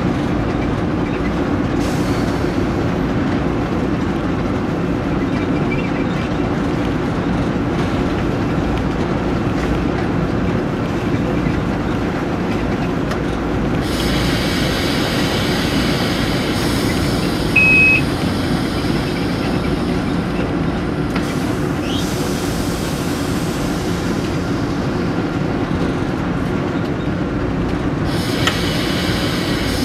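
Cab of a moving diesel freight locomotive: a steady low rumble of engine and wheels on rail. About halfway through, a high hissing wheel-and-rail noise joins it, and a single short beep sounds a little past the middle.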